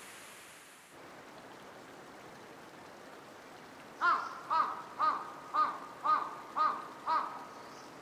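A crow cawing seven times in an even series about half a second apart, starting about four seconds in, over a faint steady hiss. In the first second the rush of a waterfall fades away.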